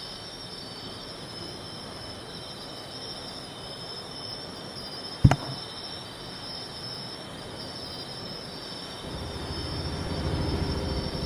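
Steady high-pitched insect chorus, with a single sharp click about five seconds in and a low rumble building near the end.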